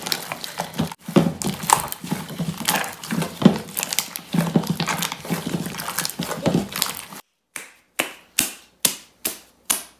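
Sticky glue-and-contact-solution glitter slime being squeezed and kneaded by hand in a plastic bowl: irregular wet squelching and popping, the slime still tacky and not yet set. About seven seconds in it cuts out, and six short, sharp squelches follow a little under half a second apart, each stopping abruptly.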